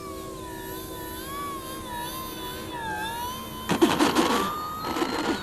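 Brushless electric motor and propeller of a foam RC Cessna 182 whining on approach, the pitch wavering as the throttle changes. About three and a half seconds in, the wheels hit the asphalt runway in two loud, rough rolling bursts, and the motor whine starts rising steadily as the throttle comes up for a touch-and-go.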